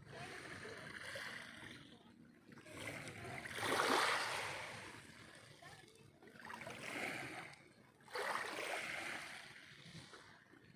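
Small waves of a calm sea lapping and washing in, coming in several swells that rise and fade, the loudest about four seconds in.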